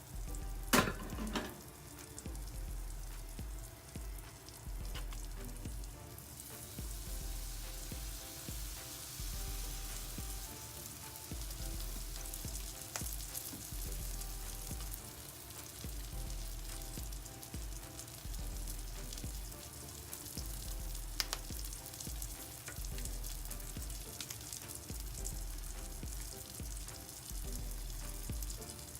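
Egg-and-leftovers pancake batter frying in a pan, a steady sizzle that grows louder about six seconds in. There is a sharp knock about a second in.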